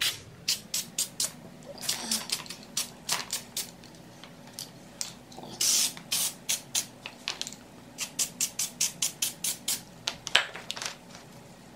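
Aerosol can of spray adhesive hissing in dozens of short bursts as glue is sprayed along the edge of a headliner panel, with one longer spray about halfway through.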